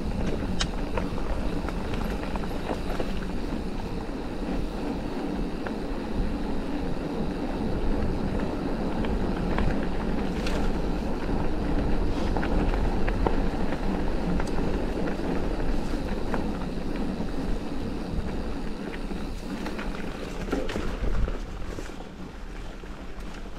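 Mountain bike being ridden along a dirt trail: a steady rush of tyre and wind noise, with scattered sharp clicks and knocks from the bike.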